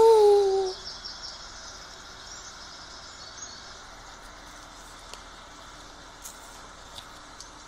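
A loud, brief tone that glides up and then eases down, lasting under a second. After it, faint crinkling and a few light clicks as a foil sheet-mask sachet is handled and opened.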